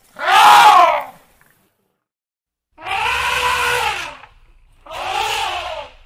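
Elephant trumpeting: three blasts, a short loud one at the start, a longer one about three seconds in, and a shorter one near the end, each rising and falling in pitch.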